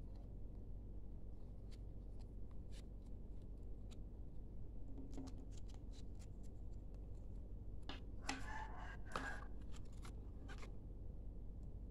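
Hands handling a USB-C cable and the phone's paper and cardboard packaging: scattered light clicks and taps, with a louder rustle of paper or card about eight seconds in.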